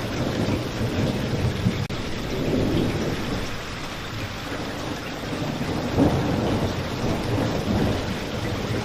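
Steady heavy rain with low rumbling thunder underneath, swelling louder about six seconds in. The sound drops out for an instant about two seconds in.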